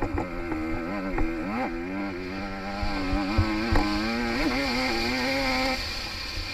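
Small-bore two-stroke enduro dirt bike engine running under throttle, seen from the rider's helmet: its pitch dips and climbs again about a second and a half in, holds steady, then drops away near the end. Low thumps and wind buffeting on the helmet microphone run underneath.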